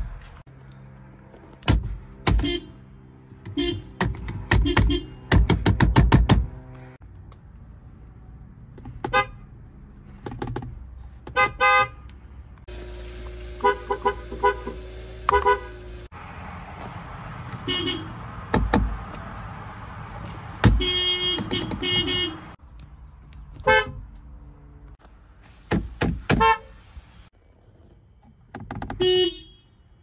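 Volkswagen car horns honked in turn, car after car: mostly quick short taps in runs of several, with a few longer presses. The horn note changes in pitch from one car to the next.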